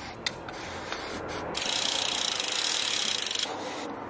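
YT Capra mountain bike's rear freehub ratcheting in a fast, even buzz as the cranks are turned backwards, pulling the chain through a bristle chain-cleaning brush. It starts about one and a half seconds in and breaks off shortly before the end, after a few light clicks at the start.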